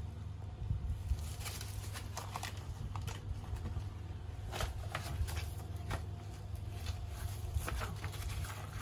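Crinkling and rustling of thin plastic food-prep gloves and a paper crepe wrapper being handled, in irregular short crackles, over a steady low hum.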